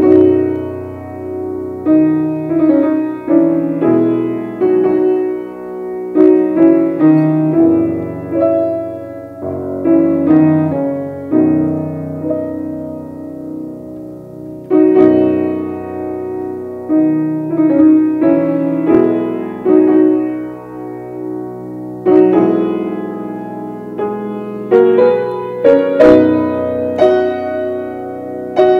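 Grand piano playing a classical piece, beginning with a loud chord and going on with a run of struck notes and chords.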